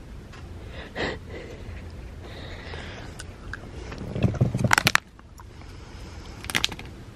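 Plastic Haribo gummy-candy bag crinkling as it is handled, in a loud crackly burst about four seconds in and a shorter one near the end.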